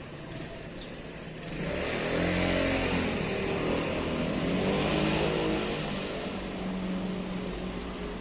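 A car driving past on the adjacent street. Its engine and tyre noise swell up about a second and a half in, stay loudest through the middle with the engine note shifting, then ease off toward the end.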